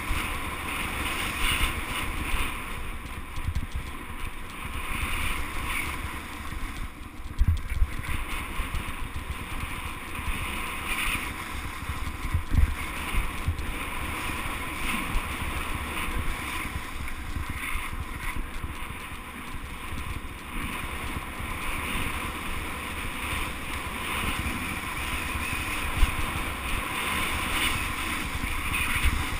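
Mountain bike rolling fast down a dirt singletrack: steady tyre and rushing-air noise with wind buffeting a GoPro's microphone, and a few sharp thumps as the bike hits bumps.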